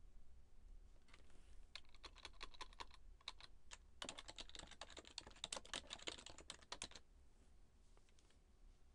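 Faint typing on a computer keyboard: a few scattered key presses, then a quick run of keystrokes that stops about seven seconds in.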